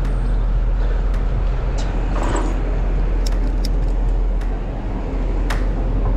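Car traffic passing beside a moving bicycle, over a steady low rumble of ride noise, with several sharp clicks scattered through it.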